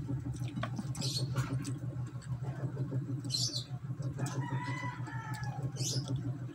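A chicken calls once in the background, a drawn-out arching call about a second long just past the middle, over a steady low hum. A few short, sharp sounds come between.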